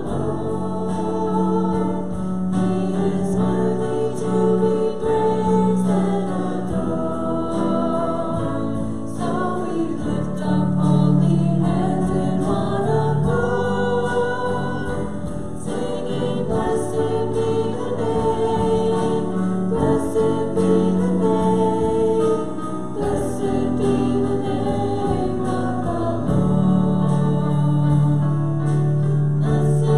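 Congregation singing a worship song together, with musical accompaniment.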